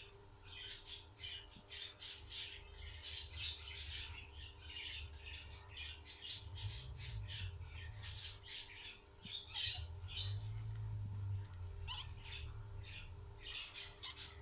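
Guinea pigs squeaking: short, high-pitched squeaks come in quick runs of several a second, pausing now and then, over a steady low hum.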